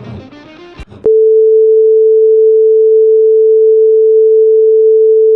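The tail of background music gives way about a second in to a loud, steady electronic sine tone at one unchanging pitch, like a test-tone beep. It holds without a break.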